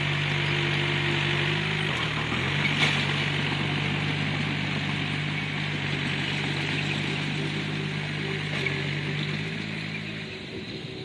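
Bulldozer's diesel engine running steadily under work. About two seconds in the engine note briefly sags and then recovers, as it does under load.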